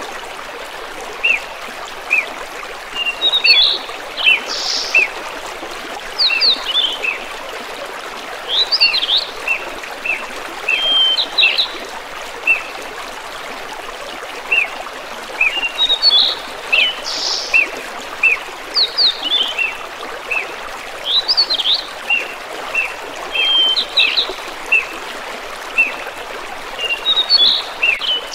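A small brook babbling steadily, with small songbirds chirping and singing over it in short, quick phrases. The same stretch of birdsong comes round again about every 13 seconds.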